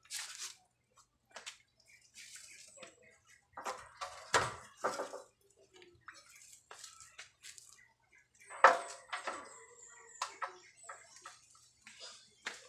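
Water gurgling and trickling in irregular bursts, with scattered drips and clicks; the two loudest gushes come about four and nine seconds in.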